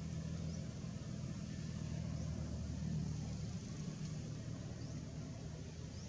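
Low rumble of a distant motor vehicle, growing louder toward the middle and easing off afterwards, with faint high chirps recurring throughout.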